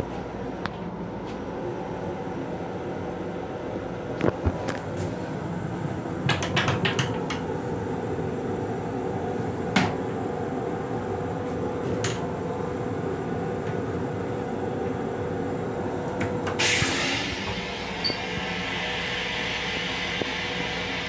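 Steady rumble and hum of an M7 railcar as heard inside its restroom, with a handful of sharp clacks and knocks as the black plastic toilet seat is handled and raised. About three-quarters of the way through, a steady hiss starts suddenly and keeps going.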